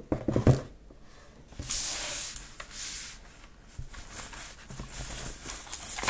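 Thin plastic wrapping crinkling and rustling as a keyboard in its wrapper is lifted out of its box and handled, with a few light knocks near the start.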